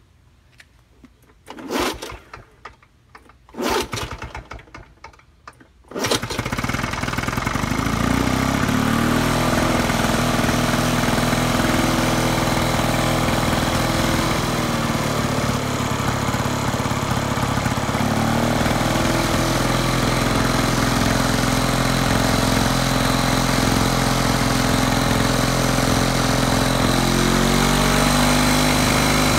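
Two-stroke engine of an International Harvester Cub Cadet 3322 push lawn mower being pull-started: two short bursts as the recoil starter is pulled, then it catches about six seconds in and runs steadily. Its speed shifts a few times as the freshly refitted throttle is tried.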